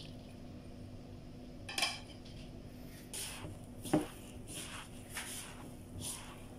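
Hand in a plastic glove kneading a raw ground-meat and chopped-vegetable mixture in a bowl: soft squishing swishes about twice a second. A short ringing clink comes just before two seconds in, and a sharp knock against the bowl at about four seconds.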